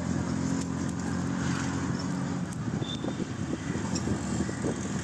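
A motor vehicle's engine running steadily while moving, with road rumble and street noise. The steady engine hum is clearest in the first couple of seconds before it turns rougher.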